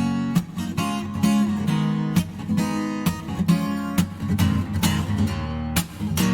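Acoustic guitar strumming chords in a steady rhythm: the instrumental intro of a song, before the vocals come in.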